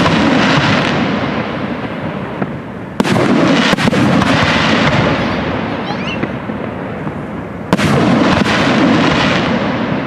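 Aerial firework shells bursting: two sharp booms, about three seconds in and near eight seconds, each trailing off into a long rolling rumble, with the rumble of an earlier burst fading at the start.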